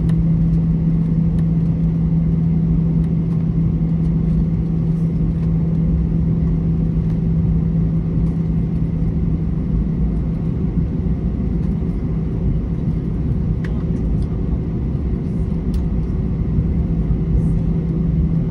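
Cabin noise of an Airbus A321 airliner taxiing: a steady low hum with rumble beneath it.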